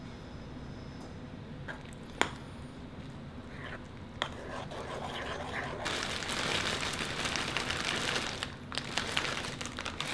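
Kitchen handling sounds over a bowl of oatmeal: a few sharp clicks of a spoon and containers, then from about six seconds a denser crinkling rustle with small ticks as blueberries are poured from a plastic bag into the bowl.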